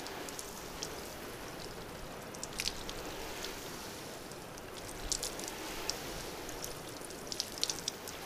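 Garden hose nozzle on shower setting spraying water onto a waxed car hood: a steady rain-like patter on the paint, with scattered sharp ticks of drops.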